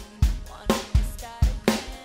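Acoustic drum kit playing a simple steady beat, bass drum and snare strokes about twice a second, over backing music with a melody.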